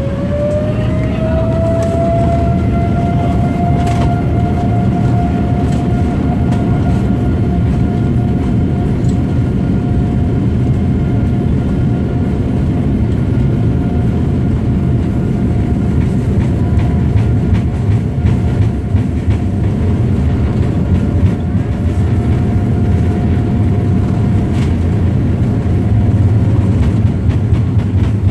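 Boeing 787 Dreamliner's GEnx-1B turbofan engines spooling up, heard from inside the cabin: a whine that rises over the first two seconds and then holds steady over a deep rumble as the plane rolls on the runway.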